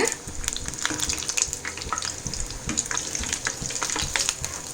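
Breadcrumb-coated semolina snack pieces deep-frying in hot oil on a low flame: a steady sizzle with many small irregular crackles, as the pieces are turned over in the pan.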